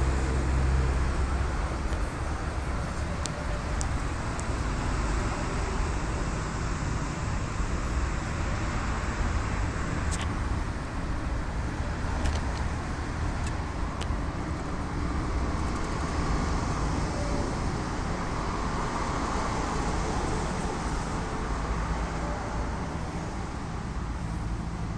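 Panasonic SUR-G1561SA-R under-counter commercial refrigerator running: a steady whir with a low hum beneath it and a few faint ticks.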